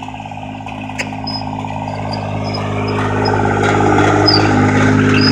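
John Deere 430 garden tractor's three-cylinder Yanmar diesel engine running steadily under load while pulling a disc harrow, growing louder as the tractor comes up close.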